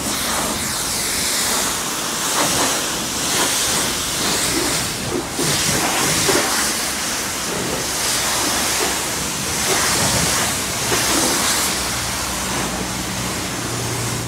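Self-service car wash pressure-washer wand spraying a fine jet of water onto a car's body. It makes a loud, steady hiss that swells and fades every second or two as the jet sweeps across the panels.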